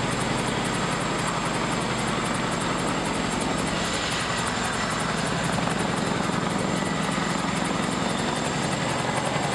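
Boeing CH-47 Chinook tandem-rotor helicopter hovering with a sling load line: a rapid, even rotor beat over the steady whine of its turbines.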